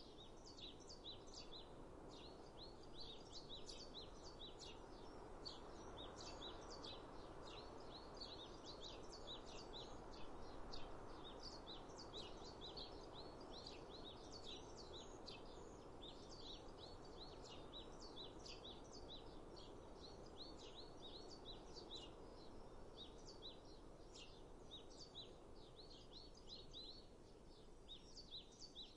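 Small birds chirping and twittering, quick high chirps in a dense overlapping stream, over a soft steady hiss of outdoor background noise.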